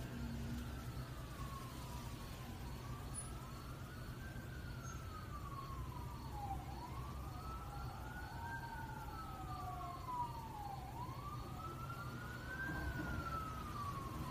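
An emergency vehicle's siren wailing, its pitch rising and falling slowly about once every four seconds, over a steady low rumble.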